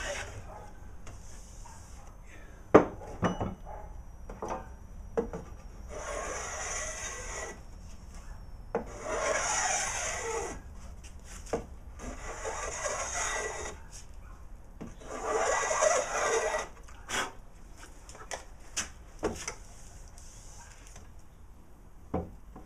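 Stanley hand planes taking light, wispy shavings off the edge of a wooden board: four long strokes about three seconds apart. Sharp knocks come between the strokes, the loudest a few seconds in.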